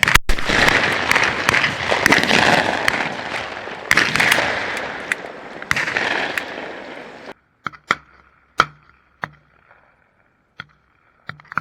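Shotgun fire at incoming doves: sharp blasts right at the start and again about four and six seconds in, over a loud wash of noise. About seven seconds in it cuts off suddenly, leaving only a few faint sharp clicks.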